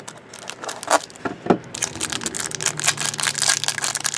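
A trading-card box and its plastic wrapper being torn open and handled: a few sharp clicks and knocks, then steady crinkling and tearing from about halfway, with a faint low hum underneath.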